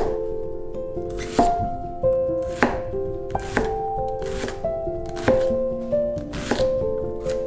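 Knife chopping on a cutting board: separate sharp strokes at an uneven pace, roughly one a second. Light background music with held notes runs underneath.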